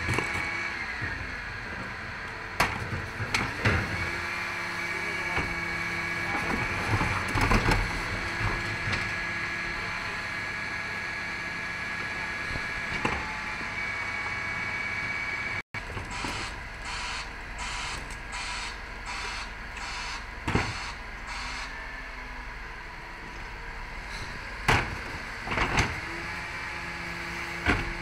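Bin lorry's Terberg hydraulic bin lift running, a steady whine that rises and falls in pitch as the truck's engine revs to drive it, with knocks and a quick run of rattling bangs as the wheelie bins are lifted, shaken out and brought back down.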